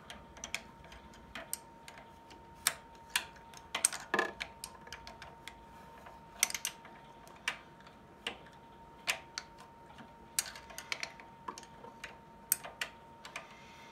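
Small ratchet wrench clicking in short, irregular runs as a change-gear nut on a mini lathe's gear train is snugged up.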